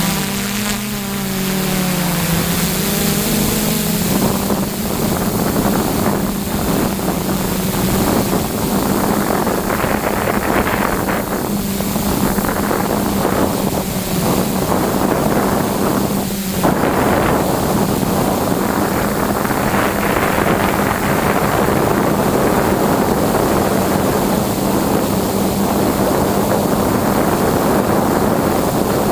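Motors and propellers of a six-rotor hexacopter (DJI E310 propulsion) droning in flight, heard from its onboard camera with heavy wind noise on the microphone. The motor pitch slides up and down in the first few seconds, then holds steady.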